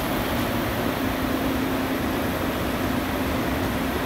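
Steady hum and rushing air of running shop machinery, with one constant low tone and no change throughout.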